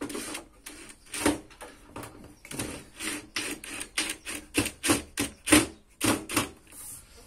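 A cordless drill-driver driving cross-head screws into a wooden cabinet in a string of short, sharp bursts, which come about three a second from a couple of seconds in.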